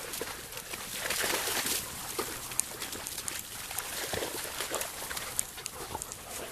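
Footsteps rustling and crunching through long grass and brush, with scattered small clicks and snaps.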